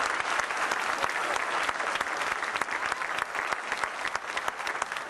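A large crowd applauding, dense steady clapping that eases slightly near the end.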